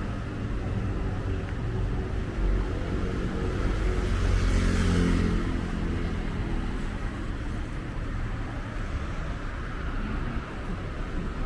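Wind rumbling on the microphone over street traffic, with a motor vehicle passing close by about four to five seconds in, its engine and tyre noise swelling and fading.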